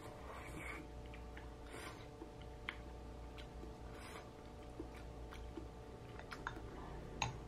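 Quiet eating at a meal: soft chewing and a metal spoon clicking now and then against ceramic bowls, the sharpest click near the end, over a faint steady hum.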